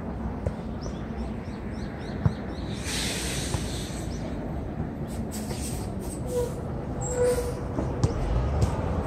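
Futsal match ambience: steady hall rumble with a sharp ball-kick knock about two seconds in and a couple of brief squeaks from players' shoes later on.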